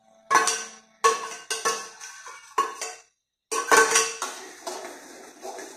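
Metal spatula knocking and scraping against a steel wok and a stainless steel bowl: a string of irregular metallic clangs, each with a short ring.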